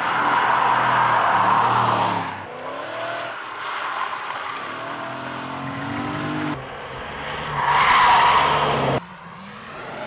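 Cars driven hard through track corners: tyres squealing over the engines, in loud stretches that change abruptly several times.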